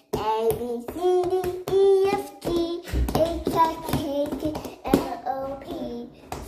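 Young girls singing or chanting in high voices, with a few sharp smacks of hands about halfway through.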